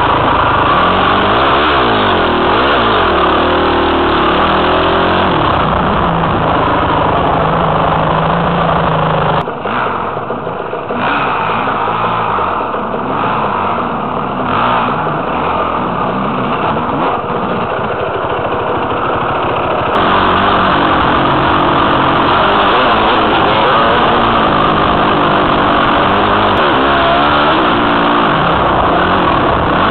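Dirt bike engine running and revving as heard from a helmet camera, its pitch rising and falling with the throttle. The sound changes abruptly twice, about a third of the way in and again about two-thirds in, then runs on steadily.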